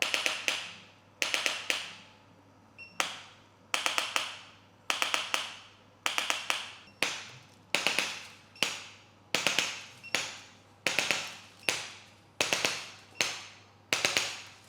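Percussive hand massage: quick slaps or chops struck on the body in clusters of two to four, repeating about once a second.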